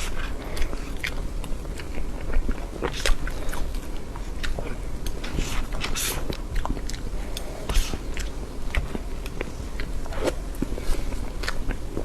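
Close-miked eating sounds of soft cream cake being chewed: a run of irregular wet mouth clicks and sticky chewing noises.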